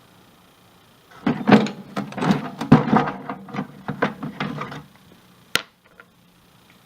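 Loose sockets and hand tools clinking and clattering against each other as they are rummaged through in a toolbox, for about four seconds, followed by one sharp clink.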